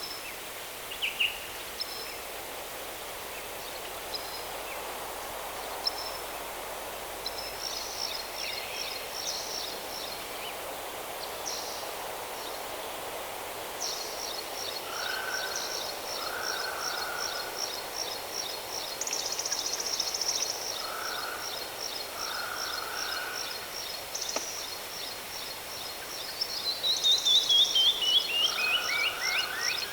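A waterfall's steady rush with several birds calling over it: brief high chirps, then a fast high trill from about halfway on, and soft lower calls now and then. Near the end comes the loudest part, a quick run of notes falling in pitch.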